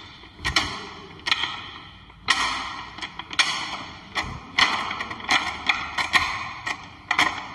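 Gear lever of a Powertrac constant-mesh tractor gearbox cut-away model being shifted repeatedly: a dozen or so sharp metallic clacks, some ringing briefly. The sliding couplers clack into and out of engagement while the gears themselves stay in mesh.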